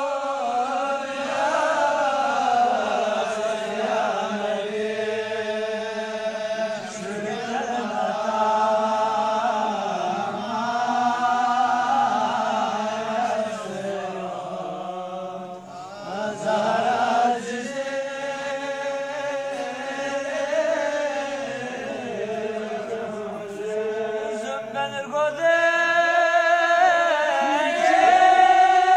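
A Balti qasida, devotional poetry chanted by voice in long melodic phrases, with a short break about halfway through.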